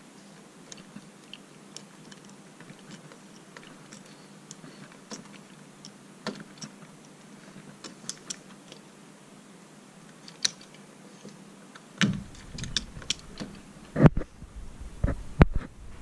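Small scattered clicks and scrapes of pliers twisting stripped copper neutral wires back together to re-terminate them. Louder knocks and handling noises start about three-quarters of the way through, with two sharp knocks near the end.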